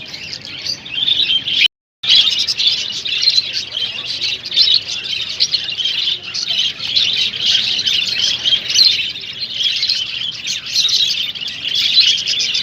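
Many small ornamental cage birds chirping and twittering together in a dense, continuous chorus. The sound drops out completely for a moment just under two seconds in, then resumes.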